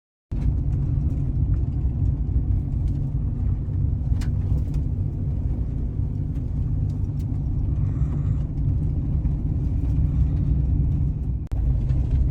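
Steady low rumble of a vehicle driving, with a few faint clicks. It cuts out for an instant near the end.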